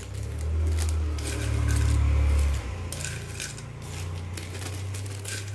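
Dry, hard fried crackers (kerupuk seblak) clicking and clinking against a spoon, a plate and a small plastic bag as they are scooped in for packing. Under it is a low rumble from a sleeve brushing close to the microphone, loudest for the first two and a half seconds.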